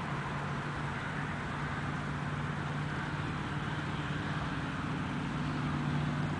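Steady engine hum of a vehicle running over a constant rush of background noise, with no sudden sounds.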